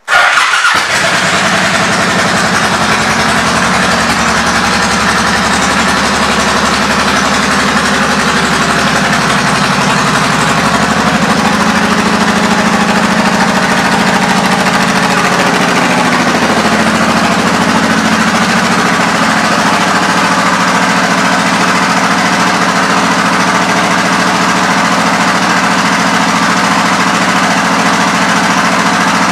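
A 2007 Honda VTX 1800's big V-twin engine starts, then idles steadily through aftermarket Cobra exhaust pipes.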